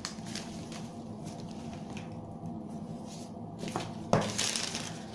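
Hands handling a phone's retail box and its papers, with quiet rustling and two light knocks about four seconds in.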